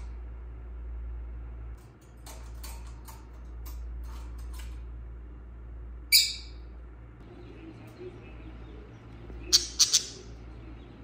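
Pet birds chirping: a run of short chirps, one loud call about six seconds in, and three sharp calls in quick succession near the end, over a steady low hum.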